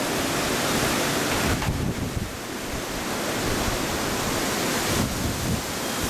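Strong wind blowing in a steady rush, with gusts buffeting the microphone in a low, uneven rumble. The wind eases slightly about two seconds in.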